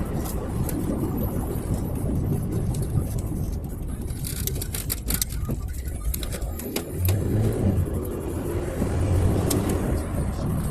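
Car driving on the road: a steady low rumble of engine and road noise, with a cluster of sharp clicks and rattles about four to six seconds in.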